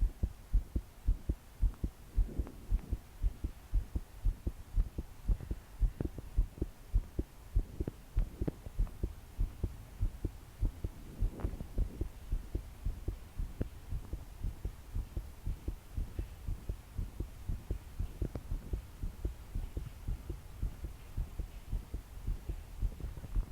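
A young woman's fast, pounding heartbeat: a quick, even run of low thumps, sounding during palpitations strong enough to shake her body.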